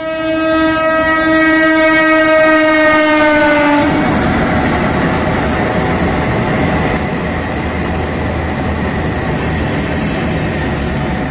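A locomotive-hauled passenger train passes at speed. The locomotive's horn sounds one long blast whose pitch sags slightly as it goes by, cutting off about four seconds in. Then comes the loud, steady rush and rumble of the coaches.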